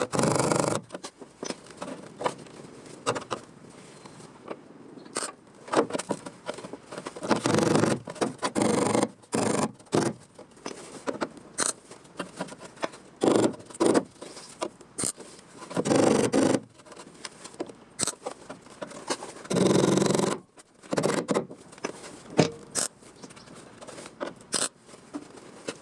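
Hand-worked scraping on car body sheet metal: short, irregular bursts of rasping, each up to about a second and a half long, with scattered clicks and taps in the pauses between them.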